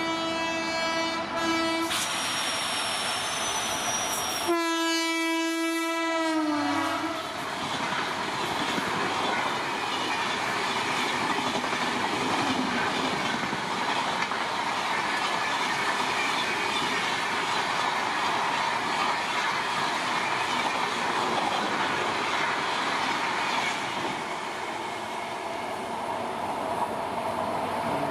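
Electric-hauled express train passing at high speed. The locomotive's horn sounds in two long blasts, the second dropping in pitch as the engine goes by, followed by a steady rush of the passing coaches.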